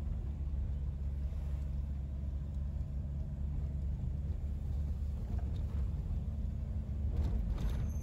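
Toyota HiAce camper van on the road: a steady low rumble of engine and road noise, with a little more hiss near the end.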